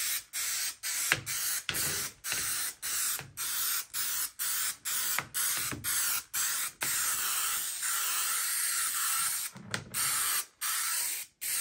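Aerosol can of 3M Super 77 spray adhesive hissing in short repeated bursts, about two a second, as it is sprayed onto foam deck matting. Near the middle there is one longer unbroken spray of about two seconds.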